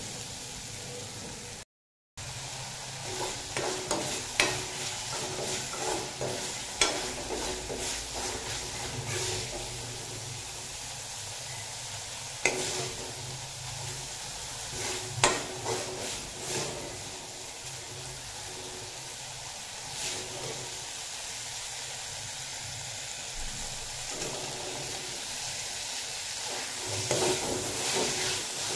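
Masala sizzling in a metal kadai while a steel spatula stirs and scrapes it, with sharp clicks of the spatula against the pan now and then. Near the end the stirring gets busier as potato cubes are turned into the masala. The sound cuts out for a moment about two seconds in.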